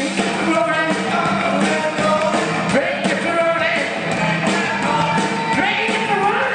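Live rock and roll band playing at full volume: electric guitars, bass guitar and drums, with a sung lead vocal.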